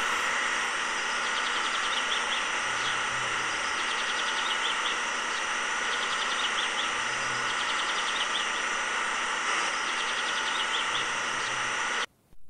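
A steady mechanical whirring hiss with several held tones, overlaid by clusters of short, high chirps that repeat about every four seconds.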